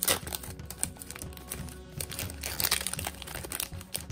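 Foil trading-card pack wrapper crinkling and crackling in the hands as it is peeled open and the cards are slid out, a quick run of small sharp crackles, over quiet background music.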